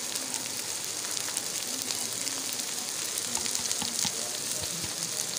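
Pot of zarda (sweet rice with sugar syrup and ghee) sizzling steadily on the heat, with small crackles, as the syrup that the sugar released cooks off.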